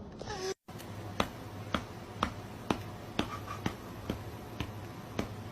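A series of sharp, evenly spaced snaps or clicks, about two a second, starting just after a brief dropout in the sound.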